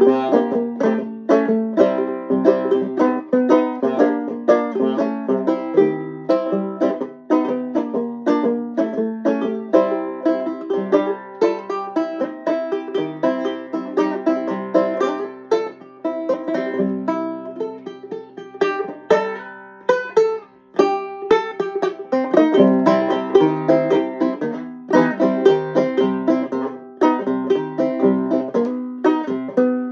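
Banjo played solo in a blues style: a steady run of quickly decaying picked notes, with a brief pause about twenty seconds in.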